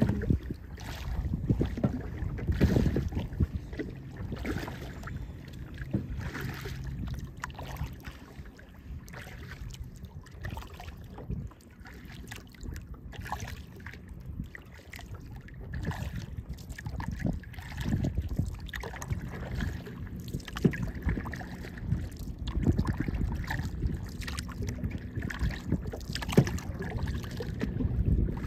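Kayak being paddled through water: irregular splashes from the paddle and water slapping the hull, over a steady rumble of wind on the microphone.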